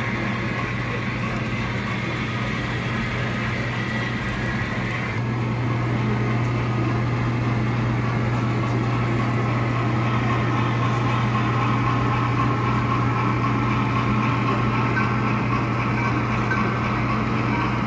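Model railroad trains running: a steady hum from the model Frisco 2-8-2 steam locomotive and the freight cars rolling over the track, growing a little louder about five seconds in, with a faint regular ticking about twice a second later on.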